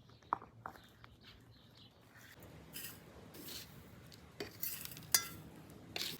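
Cutlery and dishes clinking: scattered light clinks and knocks, with a sharper ringing clink about five seconds in.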